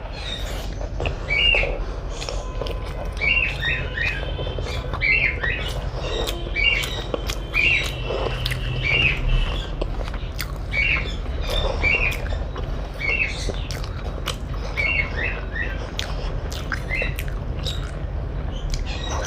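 Birds chirping, short calls repeated every second or so, often in pairs, over small clicks and mouth sounds of eating.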